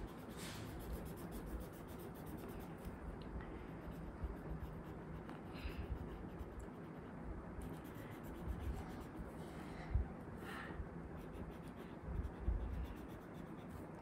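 Faint, steady scratchy rubbing of a colouring tool on paper as a drawing is filled in with purple, with a few soft low bumps now and then.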